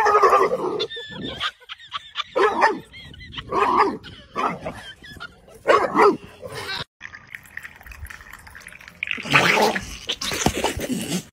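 A dog making short vocal sounds every second or so, whimpers and low woofs in separate bursts. About nine seconds in comes a louder burst of sound.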